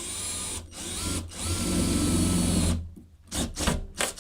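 Power drill with a 7 mm bit boring a bolt hole in a sliding window frame for a window lock. It runs in trigger bursts, the longest and loudest lasting about a second and a half, with a few quick blips near the end.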